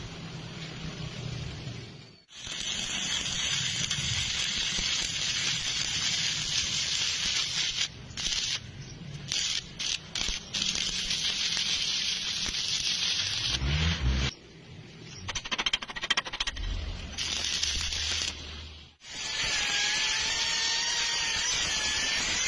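Angle grinder grinding down a weld on thin square steel tube: a harsh, steady scraping hiss that breaks off and restarts several times. Near the end the grinder's whine wavers in pitch as it bears on the metal.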